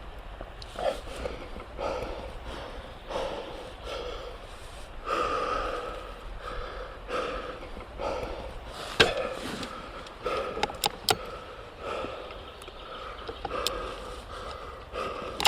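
A person breathing hard, a breath about once a second, with a few sharp knocks about nine and eleven seconds in.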